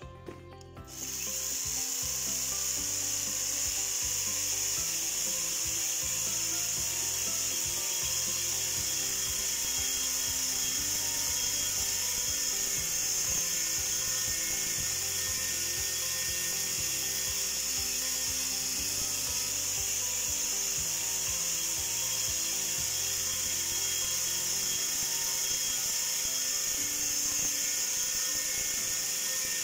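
Bristle Blaster surface-preparation tool running steadily, its rotating steel-wire bristle belts striking and scouring a steel plate: a continuous high hiss over a steady motor whine.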